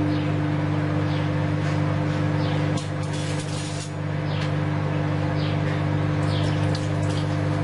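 Microwave oven running with a steady electrical hum while it heats milk. Small birds chirp briefly several times in the background, each chirp falling in pitch.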